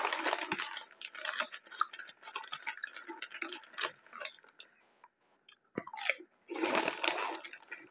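A person chewing a crunchy mouthful close to the microphone, with crisp crackling from Funyuns onion snacks. The crackle is densest in the first few seconds, thins out to near quiet, and picks up again near the end.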